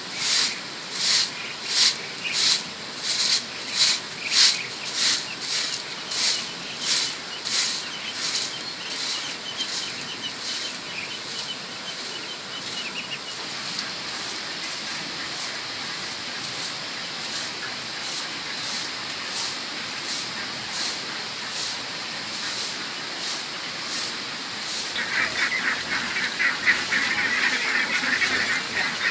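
Straw broom sweeping a concrete yard in steady scratching strokes, a little more than one a second, for about the first twelve seconds. After that, farmyard ducks and geese over a steady outdoor hiss, with a louder, dense chattering for the last few seconds.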